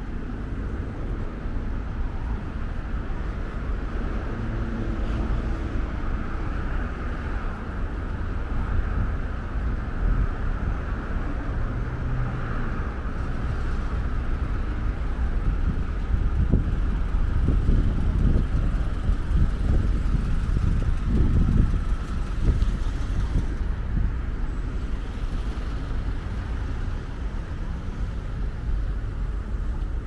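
Road traffic passing on a main road, a steady wash of car engines and tyres, with wind rumbling on the microphone. It grows louder from about 16 to 22 seconds in.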